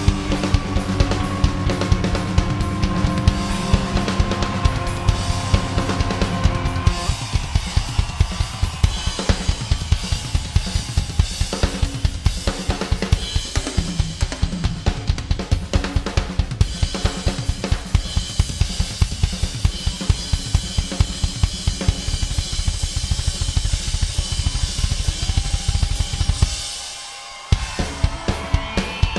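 Live rock band playing, led by a drum kit with kick, snare and cymbals. Sustained chords ring over the drums for the first several seconds, then the drums take over in a fast, dense beat. Near the end the sound briefly drops to a low rumble before the beat comes back.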